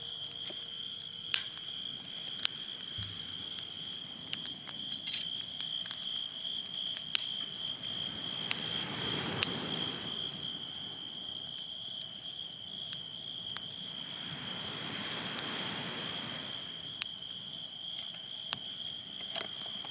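Insects trilling in one steady high, unbroken tone, with scattered sharp crackles and two slow swells of rushing noise that rise and fade.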